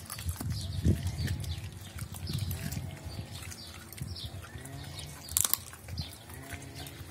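Doberman pinscher eating from a stainless-steel bowl, with repeated wet chewing and licking clicks and a sharp clack about five seconds in.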